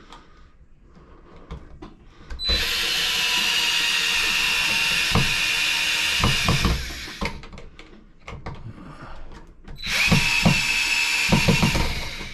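A handheld power driver runs in two long steady whirrs, driving in the new GFCI outlet's mounting screws, with knocks of the device being handled in between.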